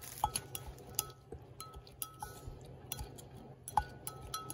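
A utensil stirring salsa in a ceramic bowl, clinking against the bowl in about a dozen irregular taps, several of which ring briefly.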